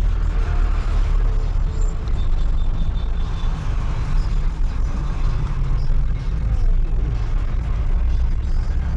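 Steady engine drone and road noise inside the cab of a moving van cruising in highway traffic, a low even rumble with no sharp events.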